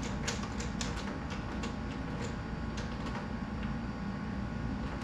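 Irregular light clicks and taps of a hand tool on the motorcycle's plastic body panel as a screw is driven in, thinning out after about three seconds, over a steady background hum.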